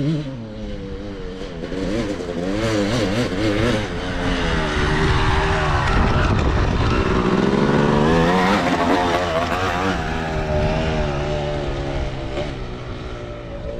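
Motocross bike riding past on a dirt track, its engine revving up and dropping back again and again as it changes gear. It is loudest as it passes close, about six to nine seconds in, then fades as it rides off up the track.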